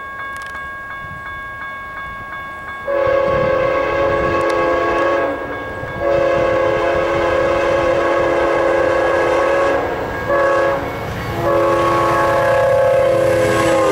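GE P42DC locomotive's multi-note air horn blowing long, long, short, long: the warning for a level crossing, over the low rumble of the passing passenger train. The horn is fainter and thinner until about three seconds in, when the first loud blast starts.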